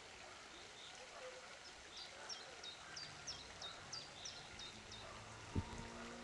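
A songbird singing a quick run of about a dozen repeated high notes, each sweeping downward, about three a second; near the end a single sharp thump is the loudest sound, over faint outdoor background noise.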